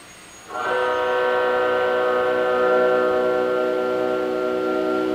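Electric guitar feedback through an amplifier, starting abruptly about half a second in and holding as a steady chord of several sustained tones.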